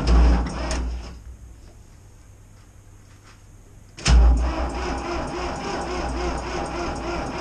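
Electric starter cranking the cold diesel engine of an IHC 633 tractor, which does not catch. The cranking stops about a second in and starts again with a click about four seconds in. This is a cold start at minus ten degrees with the glow plugs pre-heated and the extra-fuel lever pulled out, on a battery too weak to start it.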